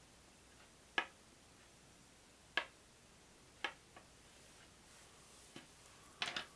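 A plastic game die set down on a wooden tabletop again and again as it is turned to show each face: short sharp clicks about a second apart, a few coming closer together near the end.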